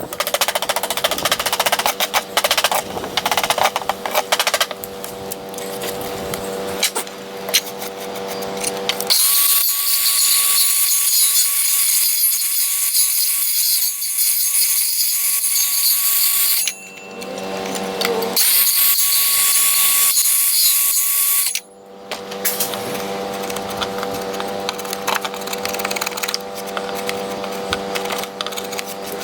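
Power drill running in two long runs, the first about seven seconds and the second about three, with a steady motor whine that glides in pitch between them, driving into 2x4 lumber.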